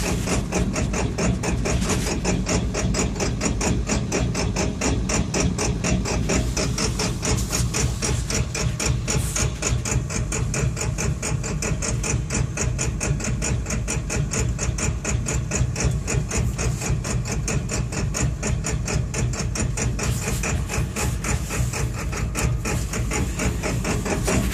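Engine idling roughly: a steady, fast, even run of mechanical beats over a low hum.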